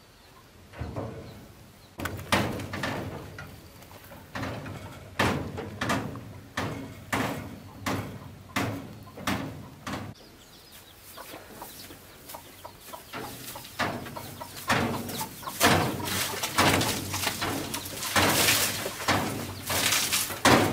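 Sheet-metal body of a wheeled rice threshing machine clanking and rattling as it is hauled over a rough dirt yard, a jolt roughly every second. Near the end the rattling grows denser and louder as the machine is shoved and jostled into place.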